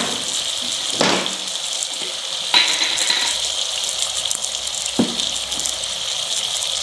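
Potato slices frying in hot oil in a pan: a steady sizzle, with a few sharp crackles about one, two and a half and five seconds in.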